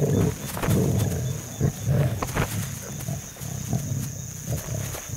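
Lions growling in a series of short, low rumbles while lion cubs tussle and play with adult lionesses.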